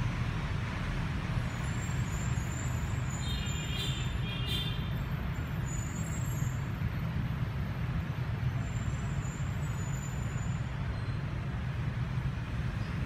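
Steady low rumble of vehicle engine and road noise, with a brief high-pitched squeak about four seconds in.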